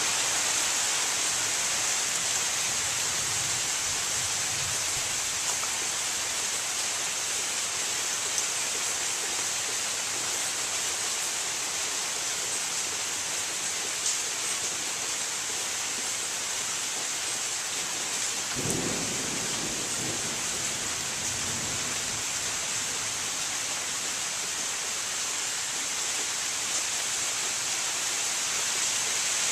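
Steady rain falling on maple leaves, an even hiss. A low rumble of thunder rises and fades about two-thirds of the way through.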